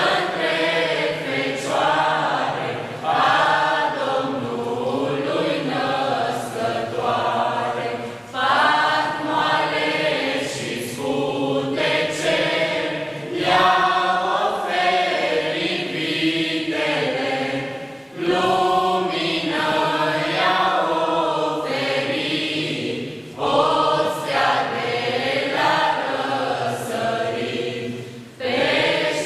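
A small youth choir of girls' and boys' voices singing a Romanian Christmas carol (colind) together, in long phrases with short breaks for breath about 8, 18, 23 and 28 seconds in.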